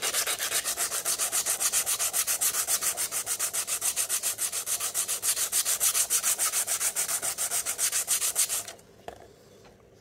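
Sandpaper rubbed quickly back and forth by hand over the steel laminations of an e-bike hub motor's stator, about seven or eight strokes a second, scrubbing off corrosion. The sanding stops shortly before the end.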